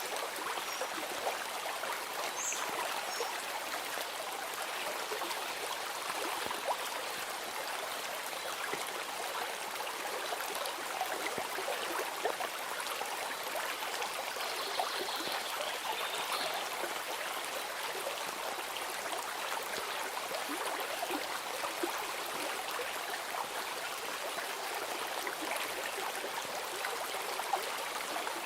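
Stream running steadily with a constant babbling, trickling wash of water.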